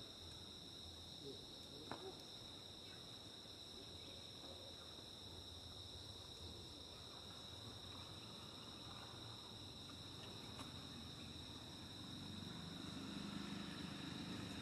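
A faint, steady insect chorus of two continuous high-pitched whines, with a single sharp click about two seconds in.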